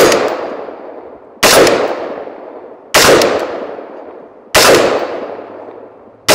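Anderson Manufacturing Dissipator AR-15 rifle with a 16-inch barrel firing single semi-automatic shots: four sharp shots about a second and a half apart, each followed by a long echo dying away.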